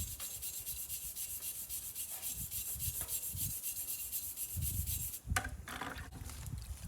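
A brush scrubbing a wet steel hatchet head, a rapid back-and-forth scratching. It stops about five seconds in with a sharp knock, followed by a few scattered scrapes.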